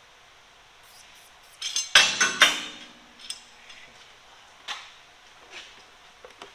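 A metal hand tool striking steel: a quick run of sharp, ringing metallic hits about two seconds in, followed by a few lighter single clinks.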